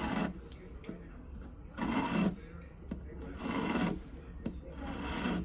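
Hand file rasping across an 18-karat gold ring in slow, separate strokes, about one every second and a half. The file is taking down a soldered-in piece so that it sits flush with the band.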